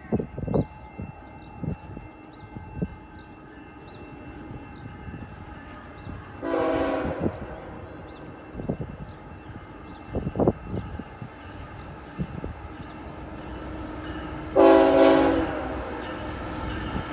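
A CN freight locomotive's multi-note air horn sounds two blasts of about a second each, roughly eight seconds apart; the second is louder. Under them the rumble of the approaching train builds.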